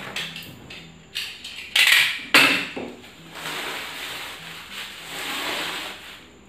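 A cardboard shipping tube being cut and torn open, with two loud ripping scrapes about two seconds in, then the rustle of plastic wrap as a fishing rod is drawn out of the tube.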